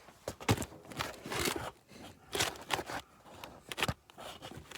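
Irregular clicks, knocks and rustles of hands and tools being handled, the loudest a sharp knock about half a second in.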